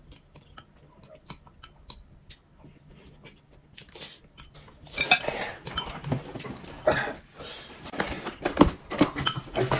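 Soft, scattered clicks of chopsticks against a bowl, with quiet eating. About five seconds in, a cardboard gift box is handled and its lid opened, with louder rustling, scraping and knocks.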